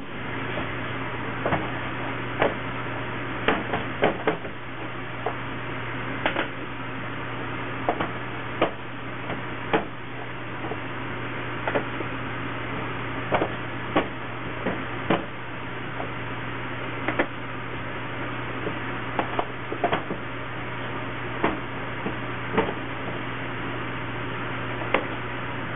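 A steady low hum with irregular light knocks and clicks on top, from a wooden transfer board and baguettes being handled over perforated metal baguette trays.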